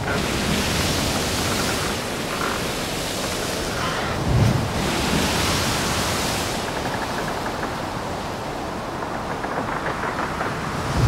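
Steady rushing wind noise on the microphone of an airborne camera, with a low buffeting thud about four seconds in.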